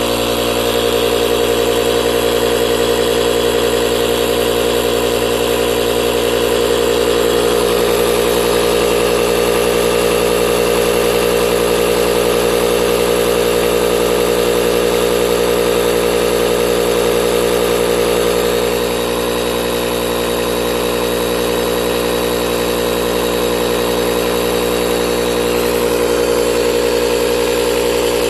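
Cordless battery-powered 20 psi SUP inflator pump running steadily with a loud motor hum while it pumps air into an inflatable paddle board. The hum shifts a little in tone several seconds in.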